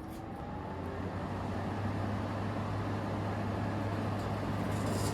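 Fan of a 2012 Frigidaire 5,000 BTU window air conditioner switched on at low fan speed: the motor spins up with a faint rising whine over the first second or so, then runs steadily with a low hum and the rush of air.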